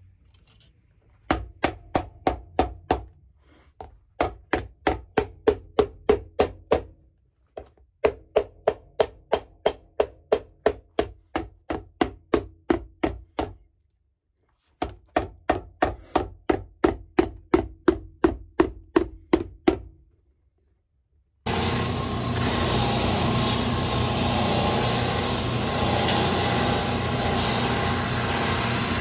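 A shoemaker's hammer rapidly tacking the upper to the insole of a boot on an iron last stand: quick ringing blows, about four a second, in four runs with short pauses. About 21 seconds in, a shoe finishing machine's sanding and buffing wheels start running with a steady, loud whir.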